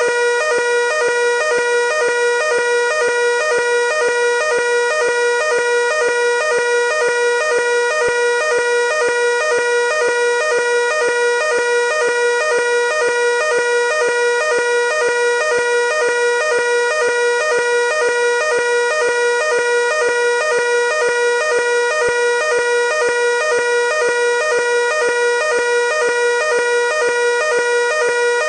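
Fire alarm evacuation signal sounding continuously: a loud, steady, high-pitched alarm tone pulsing at an even rapid rate, calling for the building to be evacuated.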